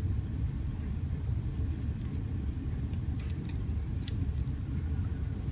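Steady low background rumble with a few faint, light clicks and ticks as a plastic glue bottle's nozzle is squeezed and worked against a small wooden model.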